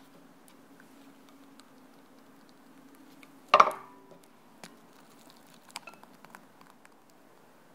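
Spatula stirring lime curd in a saucepan, with soft scraping and a faint steady hum underneath. About three and a half seconds in comes one sharp clink against the pot that rings briefly, followed by a few small clicks.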